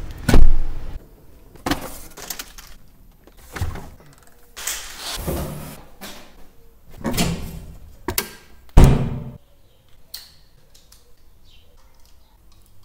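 About a dozen separate knocks and thuds of objects being handled and set down, the early ones going with shopping lifted from a trolley into a car boot. Two loud thumps stand out, one just after the start and one about nine seconds in.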